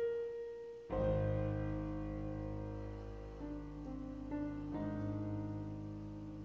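Slow solo piano background music: a chord struck about a second in, then a few more notes later on, each ringing out and fading slowly.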